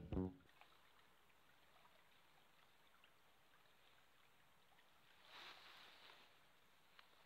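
Near silence after a music track cuts off at the very start, with a faint brief rustle about five seconds in and a small click near the end.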